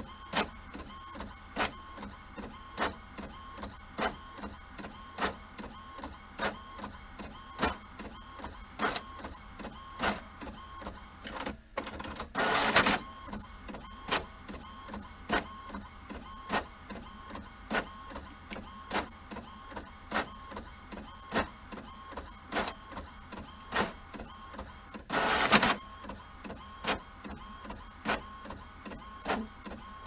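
Printer running through a print cycle: a steady mechanical hum with regular sharp clicks a little more than once a second. Twice, about halfway through and near the end, a louder mechanical rush lasts under a second.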